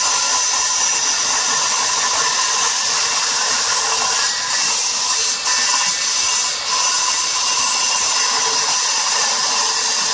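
Handheld electric circular saw cutting through the aluminium blade of a fishing-boat propeller: a steady, loud, high-pitched metal-cutting screech, with two brief dips in the middle.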